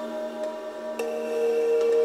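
Ambient synthesizer music: several steady drone tones held together, with a new, louder sustained note coming in about a second in and the sound swelling from there.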